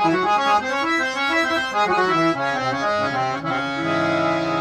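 Harmonium playing a quick melodic run of short notes, then settling into a held chord near the end.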